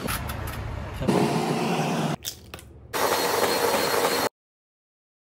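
About a second of open-air beach noise, then an electric hand mixer running through pancake batter in a few abruptly cut stretches. All sound cuts off suddenly for about the last second.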